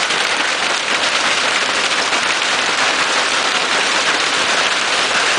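Heavy monsoon hail pelting down: a loud, steady hiss made of countless small impacts.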